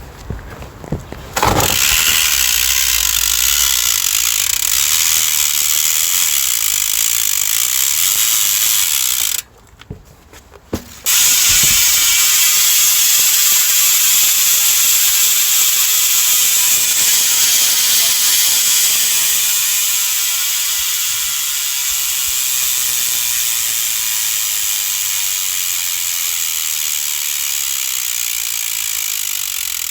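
Profile Racing AC-2 BMX rear hub freewheeling as the wheel spins: a fast, continuous ratcheting buzz. It stops briefly about ten seconds in. Then the wheel is spun again and the buzz slowly falls in pitch and level as the wheel coasts down.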